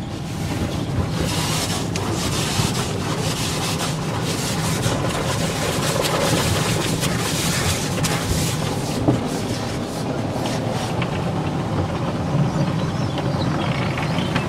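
Automatic car wash heard from inside the car's cabin: water spray and then soap foam pour steadily onto the windshield and body over the steady hum of the wash machinery.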